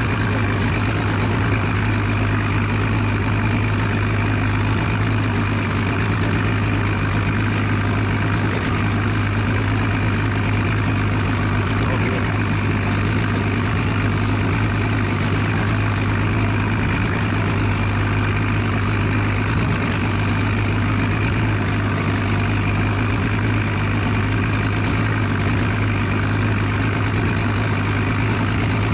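A steady low mechanical hum that holds the same level throughout.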